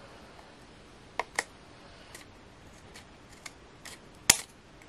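Scissors snipping through white card stock in a handful of separate short cuts, the sharpest near the end, trimming the card along an edge.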